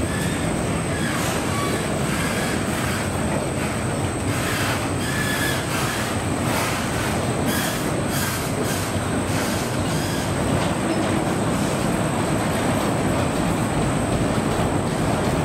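Freight train cars rolling past on the rails, with short high-pitched wheel squeals and clicks over roughly the first ten seconds, then a steady rumble.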